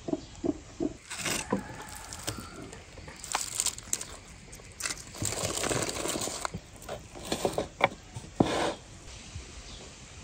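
Aluminium foil crinkling and rustling in short irregular spells as roasted beef ribs are lifted from a foil-lined tray, with sharp clicks and knocks of a knife and utensils against the meat, tray and wooden board.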